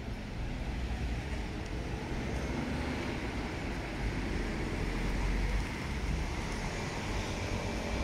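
City street traffic: a steady wash of vehicles passing with a low rumble that swells about four to five seconds in.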